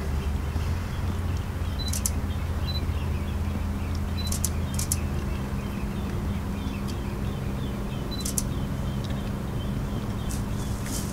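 A camera beeping to confirm focus and firing its shutter, a short high beep before most of the clicks. About four separate shots come through the middle, then a quick run of clicks near the end, over a steady low hum.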